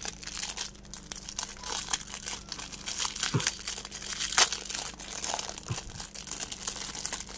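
Thin clear plastic wrap crinkling and tearing as it is peeled off by hand, in a dense irregular crackle with one sharper, louder crackle about four and a half seconds in.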